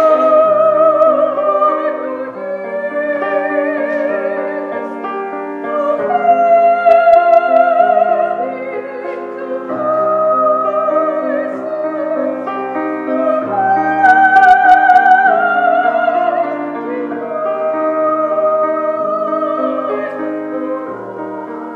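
Music: a piano plays chords under a solo melody of long, wavering held notes, most likely a singing voice, in phrases of a few seconds.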